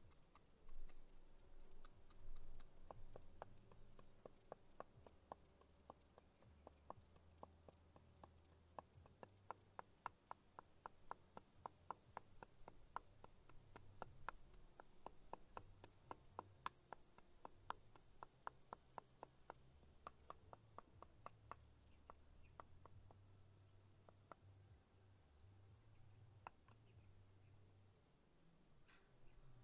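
Wooden pestle pounding in a wooden mortar: a long run of light, even knocks, two or three a second, that thins out to a few scattered taps after about twenty seconds. Under it crickets chirp in a fast, steady pulse.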